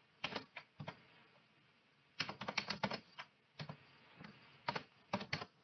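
Typing on a computer keyboard: irregular single keystrokes, with a quick run of keystrokes about two seconds in.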